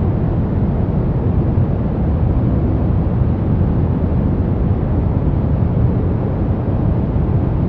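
Steady brown noise: an even, deep rumbling hiss weighted to the low end, with no change or events.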